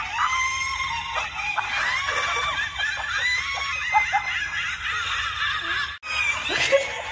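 Shrill, high-pitched cackling laughter played as a ghost sound to wake a sleeper. It breaks off abruptly about six seconds in, and a person's laughter follows.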